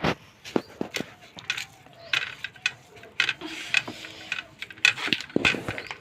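Metal dishes and utensils clinking and tapping in short, irregular knocks, typical of a meal being served and eaten from a steel plate.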